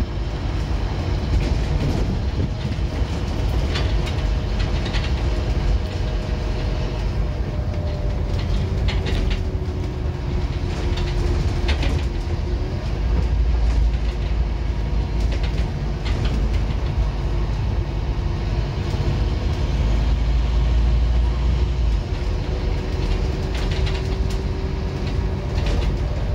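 Scania N230UD OmniCity double-decker bus under way, heard from the upper deck: a steady low drone of its five-cylinder diesel engine and road rumble, with a faint whine that slowly falls and rises in pitch and scattered light rattles and clicks from the interior.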